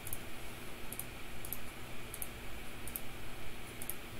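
Light, sharp clicks at a computer, scattered irregularly about once a second, some in quick pairs, over a faint low room hum.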